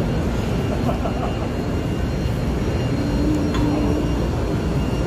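Steady background din of a large machinery exhibition hall: running machines and ventilation under faint, distant voices, with no single sound standing out.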